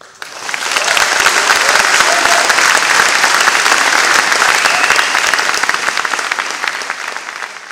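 Concert audience applauding: the clapping breaks out suddenly, swells to full strength within about a second, holds steady, and begins to die away near the end.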